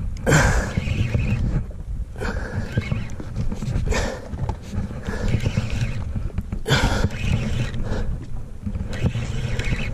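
Wind rumbling on the microphone and water washing against a small boat's hull at sea. Short rushing gusts or splashes come several times, about every two seconds.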